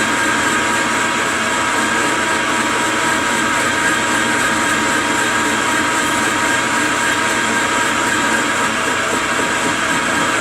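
Metal lathe running a heavy roughing cut, a carbide tool turning an aluminum ingot dry: a steady, unbroken machining noise with fixed high whining tones.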